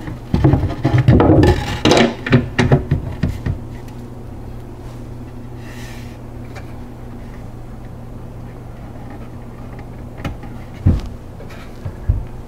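Plywood shelf knocking and scraping against the cabinet sides as it is worked into an upper cabinet and dropped onto its adjustable shelf pins, then a steady low hum, and two sharp knocks near the end as the cabinet doors are swung shut.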